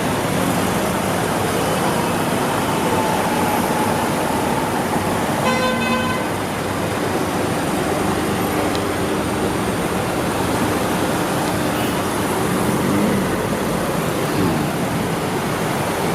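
Road traffic noise with vehicles running, and one short car horn blast about five and a half seconds in.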